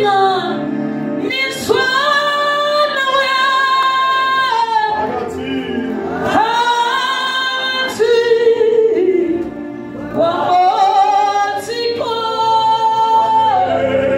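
Voices singing a gospel worship song in long held notes.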